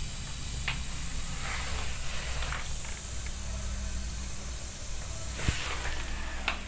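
Steady fizzing hiss from a homemade drain-cleaning mixture working in a clogged floor drain, over a low hum, with a few faint clicks and one sharp tap about five and a half seconds in.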